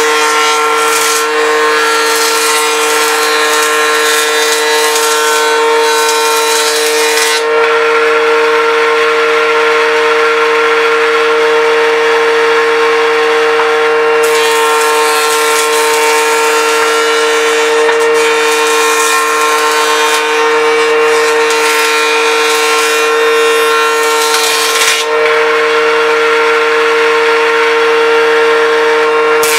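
Electric power tool running on wood: a steady motor hum that holds one pitch throughout, with a rough rasping noise on top that drops away twice for several seconds, about seven and about twenty-five seconds in.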